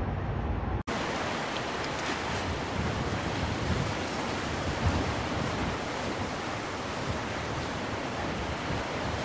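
A low rumbling background cuts off abruptly just under a second in. A steady, even rushing noise follows, like wind or surf, with no distinct events in it.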